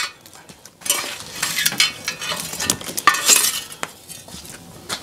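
Kitchen clatter at a wood cooking fire: a wooden spoon working in an earthenware pot, then a metal fire iron scraping and pushing burning logs under the pot. There are a few sharp knocks, and a stretch of busy scraping from about a second in.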